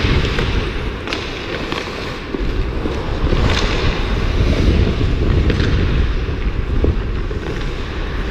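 Wind buffeting the microphone of a body-worn GoPro while skating, a heavy rumble that grows louder a couple of seconds in. It is marked by about three short, sharp scrapes of skate blades on ice.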